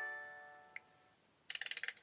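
The last note of a plucked-string phone ringtone from an LG K10's speaker, fading out over about a second. A quick rattle of sharp clicks follows, about a second and a half in.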